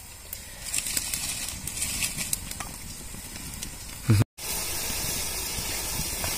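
Water heating in an aluminium kadai over a wood fire, with a soft hiss and a few faint ticks. About four seconds in the sound cuts, and a steadier, louder hiss follows as the water nears a simmer.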